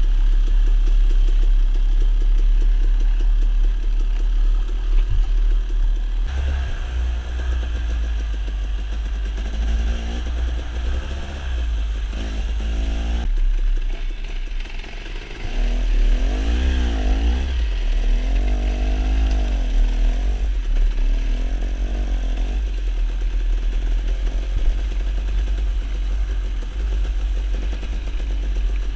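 Dirt bike engine under way, its pitch rising and falling again and again as the throttle is opened and closed over rough trail, with a heavy low rumble underneath.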